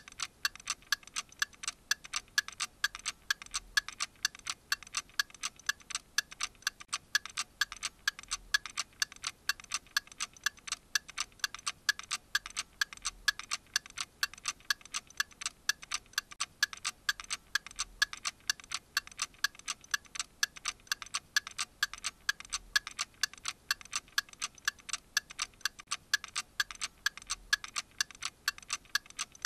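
A clock ticking steadily: sharp, evenly spaced ticks at a quick pace, with no other sound behind them.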